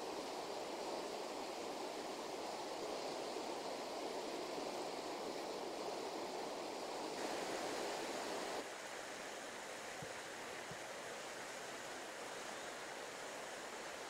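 River rapids: a steady rush of fast white water, which drops to a quieter rush about eight and a half seconds in.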